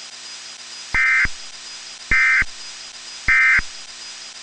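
Three short electronic data bursts of an Emergency Alert System (SAME) end-of-message code, each about a third of a second long and about a second apart, over a steady radio hiss. They are the digital signal that closes a weather radio alert message.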